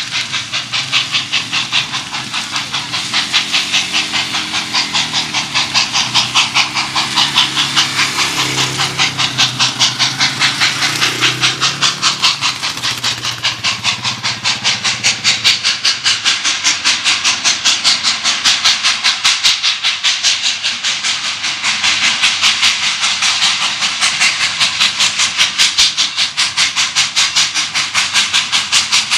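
Santa Fe 3751, a 4-8-4 Northern steam locomotive, working hard under load: a rapid, even beat of steam exhaust chuffs with hiss, growing louder as it approaches.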